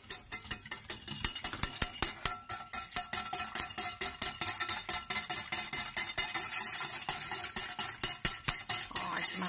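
Wire whisk beating egg yolks in a small stainless steel saucepan: fast, even metallic clicking and scraping of the wires against the pan, many strokes a second, starting suddenly. This is the yolk sabayon for a hollandaise being whisked over low heat.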